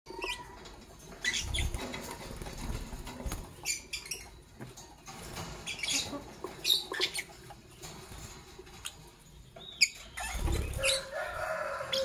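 Fischer's lovebirds giving short, sharp chirps every second or so, with a bird fluttering its wings and rustling on its perch.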